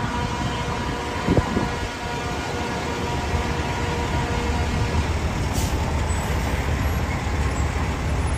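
Low, steady rumble of idling vehicles in stopped traffic, with a faint steady whine above it. A short sharp sound comes about a second and a half in.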